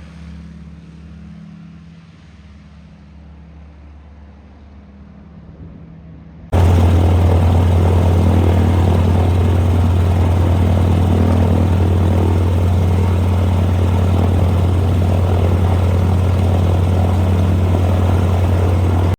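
De Havilland DHC-2 Beaver's Pratt & Whitney R-985 radial engine and propeller running. For the first six seconds or so it is fairly quiet, then there is an abrupt jump to a much louder, steady full-power sound with a strong low note. The sound cuts off suddenly at the end.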